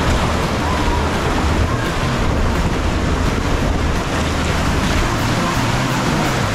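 Loud, steady rush of water.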